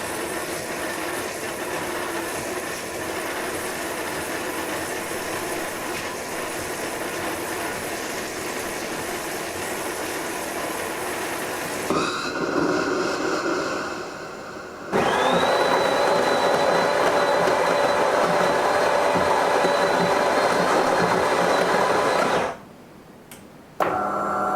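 De'Longhi Eletta Cappuccino bean-to-cup coffee machine working through a cafe latte cycle, with steady mechanical running for about twelve seconds. After a change and a short dip, a louder, steadier hum with a high whine on top runs, cuts off sharply about two seconds before the end, then the machine starts up again briefly.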